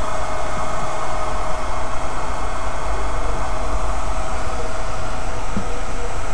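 Steady whirring hum and hiss of running equipment, with a constant mid-pitched tone through it.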